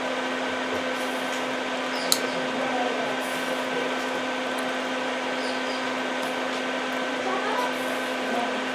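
Electric fan motor running steadily, a constant whirring hum with a fixed low tone, with one small click about two seconds in.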